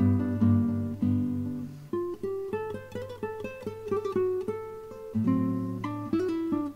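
Solo guitar music: picked notes ringing over a low bass note, with a quick run of single notes about two seconds in, then fuller chords again near the end.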